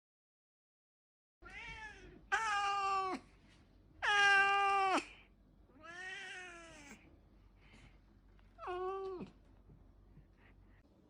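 Domestic cat meowing five times, each a drawn-out meow of up to about a second, the loudest about four seconds in.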